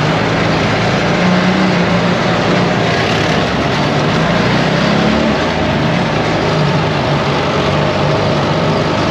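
ATV engine running under way, its pitch wavering and rising slightly about five seconds in, over a steady loud rush of noise.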